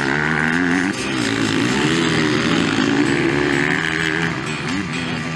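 Motocross bike engines revving as riders go through the turns, the pitch rising and falling with each change of throttle.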